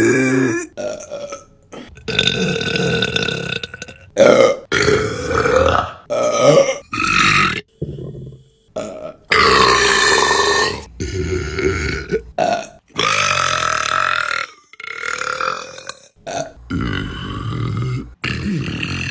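A rapid string of about a dozen loud belches by different women, each cut hard against the next: some short, several long and drawn out for a second or more.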